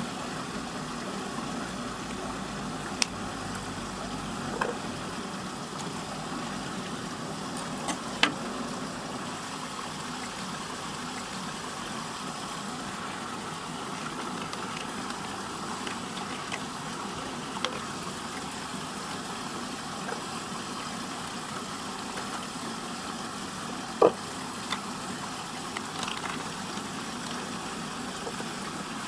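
Water churning steadily down a whirlpool vortex: a constant rushing noise with a low hum, broken by a few short sharp clicks as plastic toys are handled over it.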